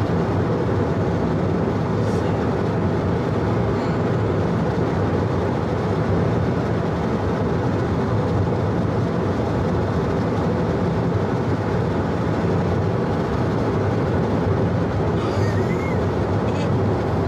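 Steady road noise and engine hum of a car being driven, heard from inside the cabin.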